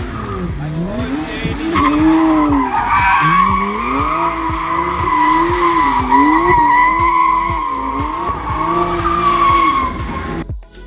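A car doing donuts: its tyres squeal continuously while the engine revs rise and fall every second or so with the throttle. The engine and squeal cut off suddenly near the end.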